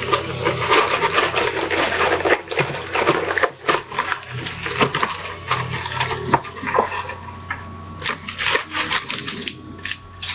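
A retail box of hockey cards being handled and opened: crinkling and rubbing of packaging, heaviest for the first few seconds and again near the end, with scattered sharp clicks and taps between.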